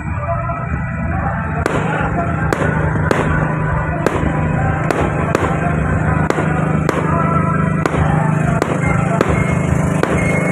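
Fireworks going off in quick succession over the lagoon, a string of sharp bangs about two a second starting about a second and a half in.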